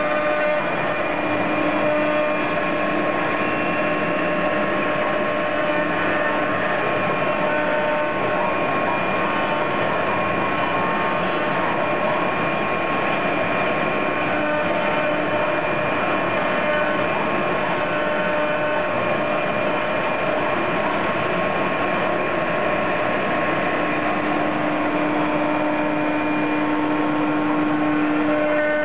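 CNC router spindle running steadily while the cutter machines oak, a whine of several steady tones over a dense cutting hiss. A lower hum swells near the start and again near the end.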